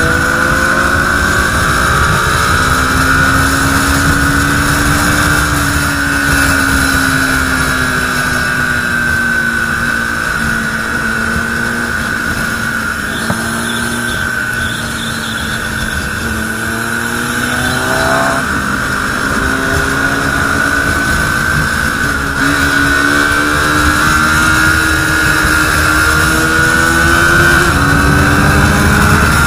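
KTM RC 390's single-cylinder engine running at highway cruising speed, heard from on the bike. The engine note rises and falls slowly as the throttle changes and gets louder over the last few seconds.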